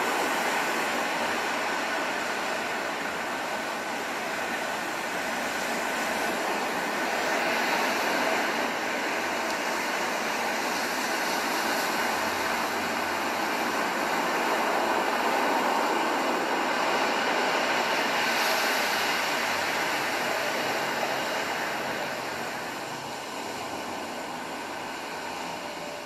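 HP 15s-du1014tu laptop's built-in speakers playing a nature video's soundtrack: a steady rushing sound with faint held tones, thin in the bass.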